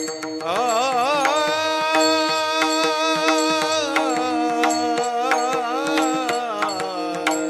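Kirtan singing: a man's voice holds a long, ornamented note over a steady drone, with regular percussion strokes.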